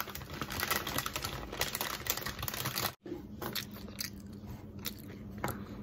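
Close-up crackles and clicks. They thin out after a brief dropout about three seconds in.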